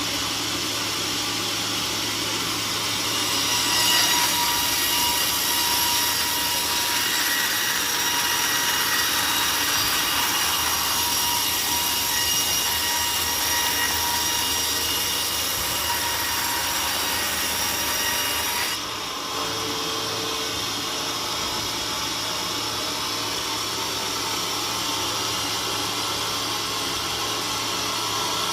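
Sawmill saw running steadily, then cutting through a teak log a few seconds in, with a louder, brighter hiss of the cut that stops abruptly about two-thirds of the way through, leaving the saw running on its own.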